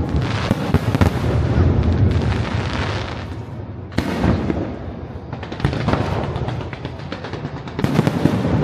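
Fireworks display: dense crackling and booming shell bursts, with a sharp single bang about four seconds in and a heavier volley near the end.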